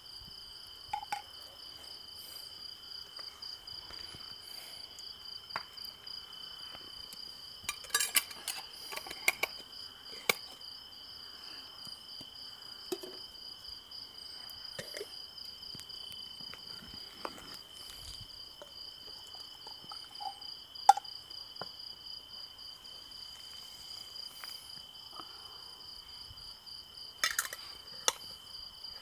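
Crickets trilling steadily, two high pitches at once, the higher one pulsing rapidly. Over them come scattered clinks and knocks of small glass bottles and metal lids being handled, the sharpest a little past two-thirds of the way through.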